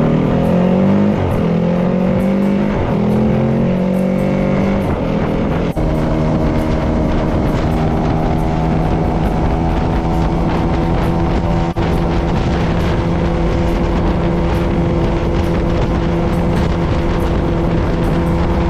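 Yamaha WR250F's single-cylinder four-stroke engine accelerating hard through several upshifts, the revs climbing and dropping back at each shift. From about six seconds in it holds a steady high-rev drone at highway cruising speed, over rushing wind.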